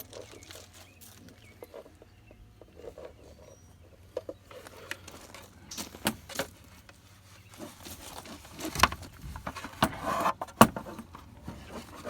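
Small clicks and taps of hands working a loose plastic towing-mirror housing and its pivot, getting busier and louder in the second half with two sharp knocks and short hissy bursts, over a steady low hum.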